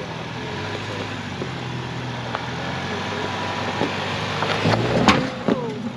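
Ford Bronco engine running at low revs as it crawls over rock ledges, getting louder as it nears. Several sharp knocks and cracks of tyres and rock, the loudest about five seconds in.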